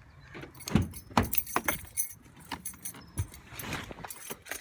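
Jingling clicks and rattles, with a few dull thumps and a brief rustle, from people moving about and handling things inside a car before setting off.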